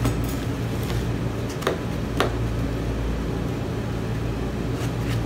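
Steady low mechanical hum of a running appliance, with a few light clicks and taps from hands handling a cardboard microphone box.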